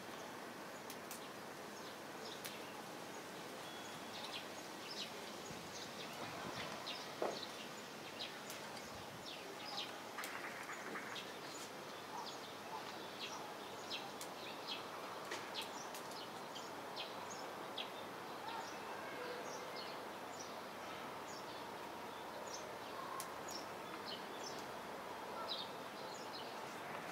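Outdoor ambience with a steady background hiss and frequent short, high bird chirps scattered throughout. A single sharper click stands out about seven seconds in.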